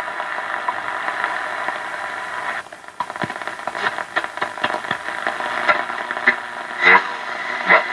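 Hiss and crackling static from a Hallicrafters S-38 shortwave receiver's speaker as it is tuned across a shortwave band, with no station coming through. The hiss dips briefly about three seconds in, and sharper crackles pop near the end.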